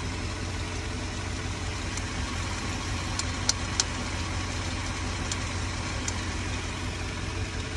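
A 2008 Range Rover Sport's 4.4-litre V8 idling steadily, its engine-driven cooling fan and accessory belt spinning. A few brief sharp clicks sound over the running.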